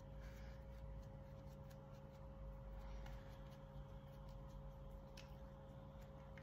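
Faint soft brushing and light ticks of a foundation brush working over the face, over a steady low hum of room tone.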